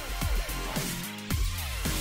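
Background music with a beat, deep bass and repeated falling, sliding notes.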